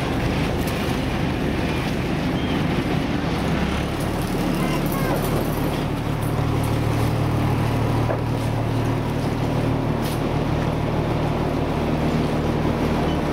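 A passenger boat's engine running steadily under way, a low drone, heard inside the covered deck with the rush of water and wind.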